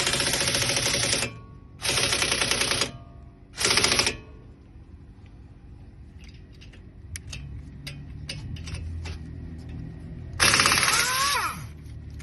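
Impact wrench hammering on a lug nut in short bursts, three in the first four seconds, then light metallic clicks, then a final burst about ten seconds in whose pitch slides as the tool spins down.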